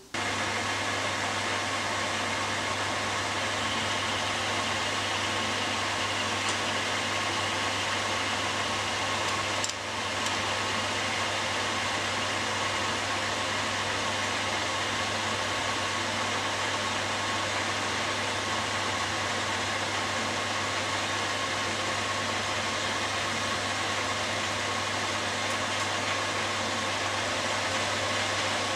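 Metal lathe running steadily, a constant motor hum under an even mechanical noise, with a brief dip about ten seconds in.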